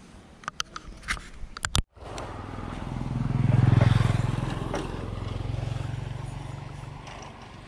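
A motor vehicle's engine hum swells to its loudest about four seconds in, then slowly fades. A few sharp clicks come before it in the first two seconds.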